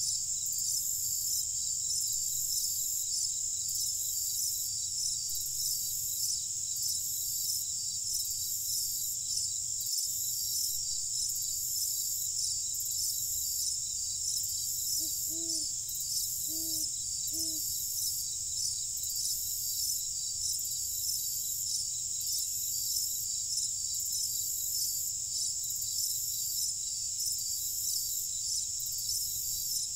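A chorus of crickets chirping steadily in a high, evenly pulsing rhythm over a low rumble. About halfway through come three short, low calls in quick succession.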